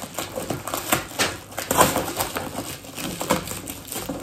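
Plastic packaging crinkling and crackling in quick, irregular bursts as a parcel is unwrapped by hand.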